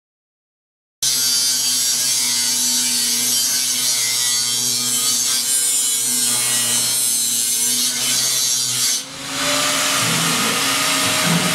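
Handheld electric power tool, most like an angle grinder, working steel plate, its motor pitch wavering as it is loaded. The sound starts suddenly about a second in, dips briefly near the nine-second mark, and picks up again with a harsher tone.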